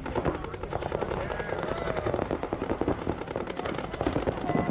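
Several paintball markers firing rapid streams of shots at once, a dense, continuous rattle of pops during a live tournament point.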